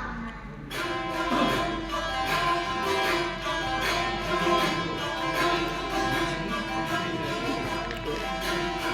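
Saz, the long-necked plucked lute, being played: a quick run of plucked notes over steadily ringing strings, starting just under a second in.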